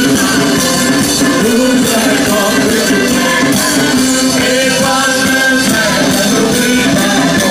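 Live band playing loud music with singing and a steady beat, over a PA system.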